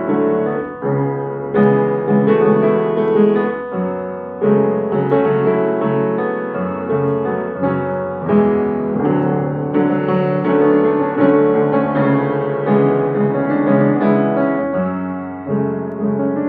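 Mason & Hamlin acoustic piano played slowly, with full sustained chords struck about once a second and left to ring.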